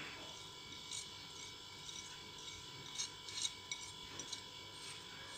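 Faint scraping with a few light ticks as chopped onion is added to a bowl of mashed potatoes.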